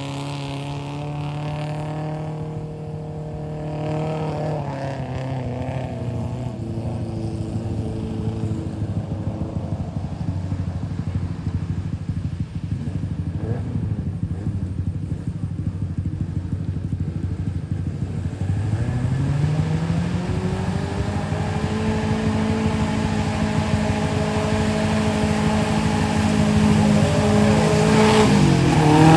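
Vehicle engine running under load off-road, its pitch dropping a few seconds in and climbing again past the halfway mark as the revs rise, getting louder towards the end.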